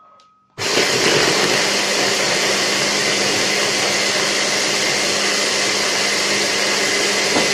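Electric blender switched on about half a second in and running steadily, grinding pieces of baked sponge cake into crumbs.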